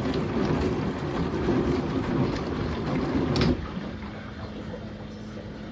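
Dishwasher running under test with a freshly fitted timer: a steady rushing of the machine at work cuts off with a click about three and a half seconds in, leaving a quieter low, steady hum.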